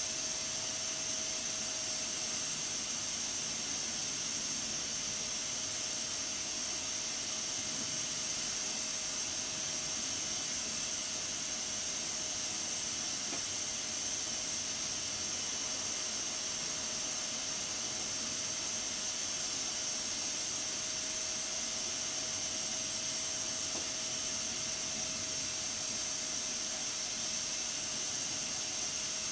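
Pressure cooker under pressure, steam hissing steadily from its lid valve, with a faint steady tone beneath the hiss.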